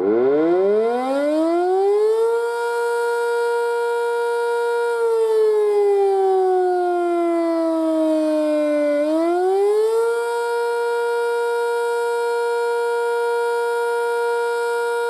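Sentry 5V mechanical outdoor warning siren winding up from rest, with a rising wail that reaches a steady high tone about two seconds in. About five seconds in, the pitch sags slowly for around four seconds. It then winds back up within a second and holds steady.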